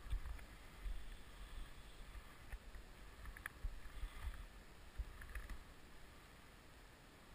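Irregular low rumbling bumps on the microphone from wind or the angler's movement, over a faint steady rush of river water, with a few small sharp clicks; the bumps die away near the end.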